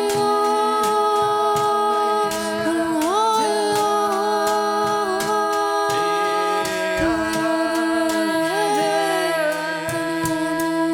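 Improvised music of several sustained sung or hummed tones sounding together, each held and then sliding to a new pitch, with light clicks throughout.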